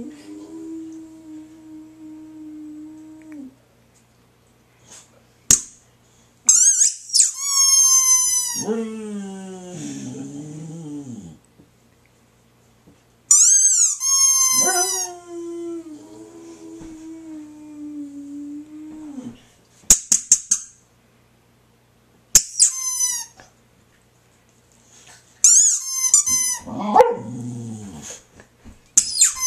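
A Boxer dog howling in long, held howls, answering a rubber squeaky toy that is squeezed in short runs of high squeaks about three times. A few sharp clicks come between them.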